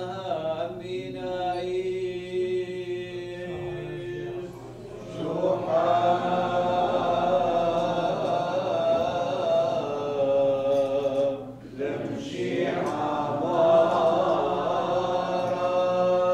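Sung liturgical chant of the Chaldean church, in long held notes. The phrases break for a breath about four seconds in and again near twelve seconds, and the singing is louder after the first break.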